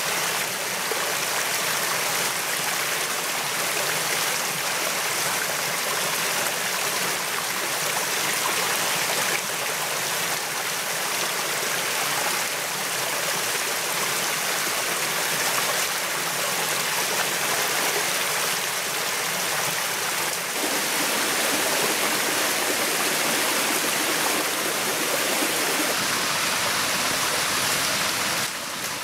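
Steady rushing of a rocky forest stream, growing fuller and lower about two-thirds of the way through.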